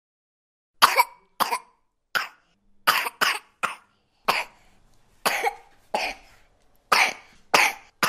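A baby coughing: a run of about a dozen short coughs, spaced roughly half a second to a second apart, beginning about a second in.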